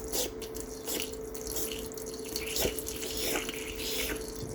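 Water running from a tap into a sink, splashing, with many irregular drips. A faint steady hum sits underneath.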